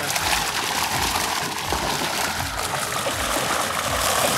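Shallow seawater splashing and trickling steadily around a fishing net full of fish as it is dragged through the water.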